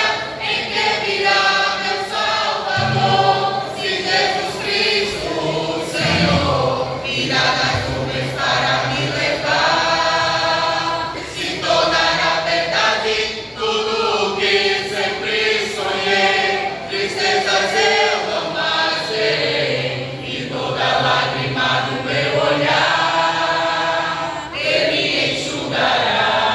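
Church vocal group singing a gospel worship song in harmony, in long phrases with short breaks between them.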